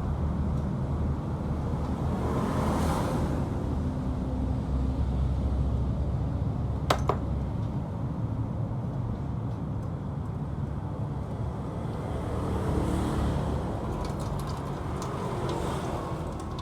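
Yamaha Exciter 135's single-cylinder engine running steadily, with a single sharp click about seven seconds in.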